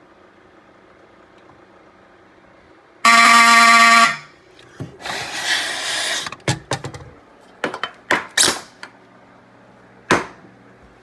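Fire alarm horn sounding one short blast of about a second, the brief activation of a walk test, over a low hum. Rustling and several sharp knocks follow.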